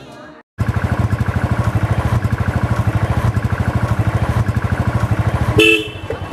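Motorcycle engine idling: a steady, rapid, even beat of low pulses, starting about half a second in. A short, louder sound breaks in near the end.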